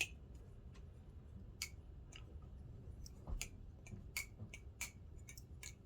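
Titanium-handled Geof Dumas EX11 butterfly knife being flipped, its handles and pivots giving irregular sharp clicks and pings, about a dozen in all.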